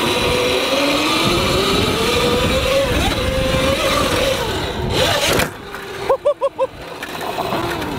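A CAKE electric motocross bike's motor whines, rising in pitch as the bike accelerates across grass and up a bank, with tyre and wind noise underneath. The sound cuts off suddenly about five and a half seconds in.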